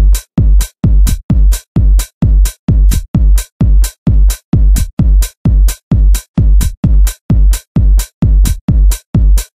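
Electronic dance music with a strong drum-machine beat: nearly three hits a second, each a deep bass thud topped with a bright hiss, the sound cutting out almost completely between hits.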